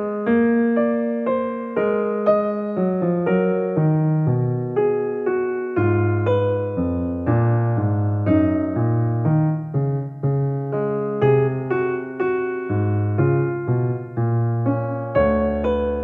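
Background music: a gentle electric piano melody over a slow bass line.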